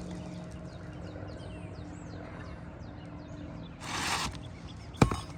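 Roof-repair work as an old asphalt shingle is pulled out: a short scrape about four seconds in, then a single sharp knock. A bird's quick, high falling chirps sound behind in the first half.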